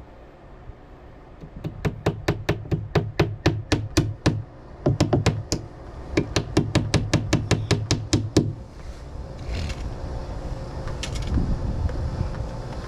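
A rapid run of sharp knocks, about three a second, in three bursts with short breaks between, followed by a low rumble.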